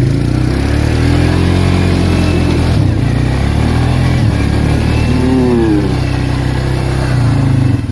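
Arctic Cat 366 ATV's single-cylinder engine revved hard under load, its pitch rising and falling several times as the quad is driven at full throttle to climb out of a spot where it was struggling, then dropping back near the end.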